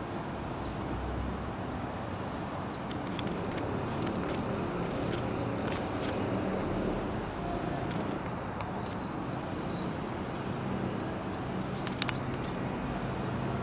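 Steady outdoor rumble of traffic, with short high bird chirps scattered through, several of them close together about ten seconds in, and a sharp click near the end.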